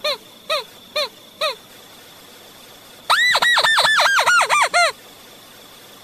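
Crake calls played from a hunters' lure recording: four short down-slurred notes about half a second apart, then after a pause a fast run of about ten arched notes that drop lower in pitch toward the end.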